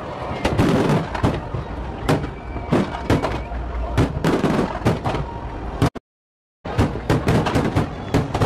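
Aerial fireworks shells bursting in quick, irregular succession, loud bangs overlapping with crackle and a constant low rumble. The sound cuts out completely for under a second about six seconds in, then the barrage resumes.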